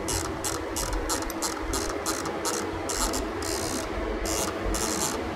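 Haas CNC mill spindle running with a steady hum while a spinning edge finder is fed toward the part's edge. Over it come short, irregular bursts of high ticking, a few a second, from the jog handwheel being turned in small steps.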